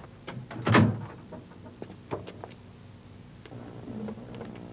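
A door shutting with a thud about a second in, then a few faint clicks and a soft steady note near the end.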